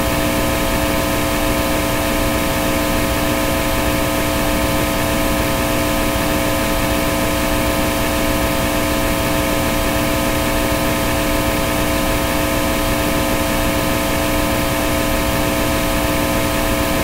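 White-noise static: a steady, even hiss with several faint steady hum tones underneath, unchanging throughout.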